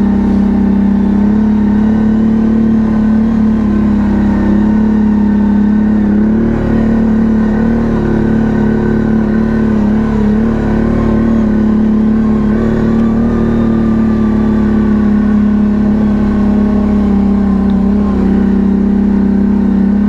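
ATV engine running at a steady speed, a continuous even drone that holds nearly the same pitch throughout with only slight rises and dips.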